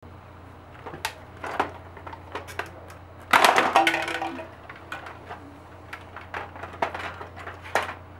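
A vacuum cleaner's plastic housing being pulled apart by hand: scattered clicks and knocks, with a louder burst of cracking and snapping plastic about three and a half seconds in.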